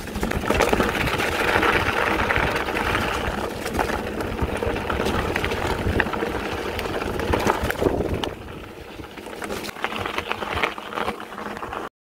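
Mountain bike rolling fast over a dirt and gravel track: tyre noise with many small rattles and clicks from the bike over the rough ground. It eases off for a couple of seconds about eight seconds in and cuts off suddenly just before the end.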